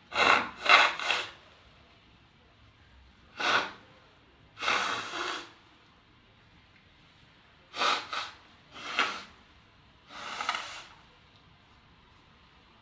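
A person sneezing repeatedly, with sharp breaths: three quick sneezes at the start, then single sneezes and pairs spread over the next ten seconds.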